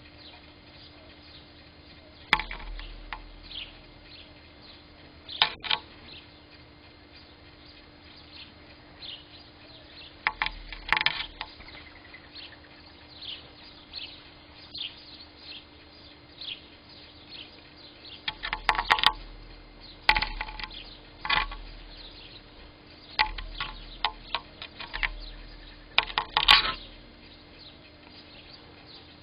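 Small birds chirping over and over in short high notes, broken by loud, sharp knocks every few seconds, some close together in clusters, with a faint steady hum underneath.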